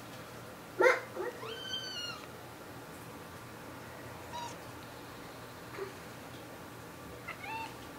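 A cat meowing: one high, arching call lasting about a second that falls away at the end, then two short quieter chirps, one about halfway through and one near the end. A sharp, loud burst comes just before the first call.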